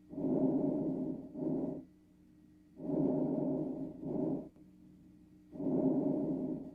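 Breath sounds heard through a stethoscope: three breaths, each a longer rushing sound followed by a shorter one, about every two and a half to three seconds.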